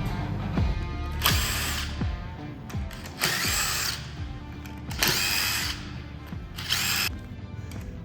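Electric power drill running in four short bursts of about half a second each, with background music underneath.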